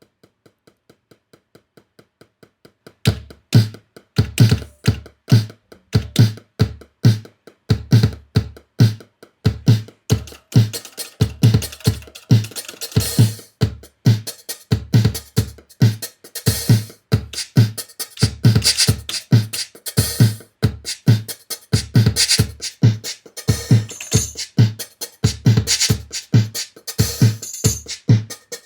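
Linn LM-1 drum machine playing a beat on its sequencer as a pattern is programmed in. Faint steady ticking comes first, about four a second. About three seconds in, a loud, regular pattern of kick drum and hi-hats starts, with more high hits layered in later.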